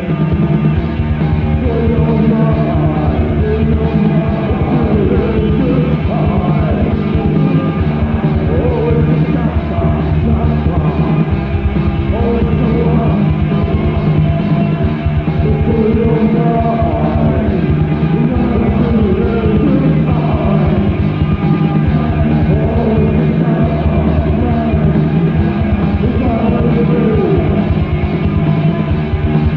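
Goth rock song: a singing voice over a full rock band, playing continuously. The sound is dull and lacking in treble, like a lo-fi tape recording.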